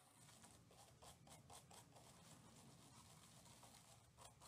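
Faint scratchy scrubbing of a small gun-cleaning brush on an AR-15 bolt face, about four short strokes a second, working loose carbon buildup softened with cleaner.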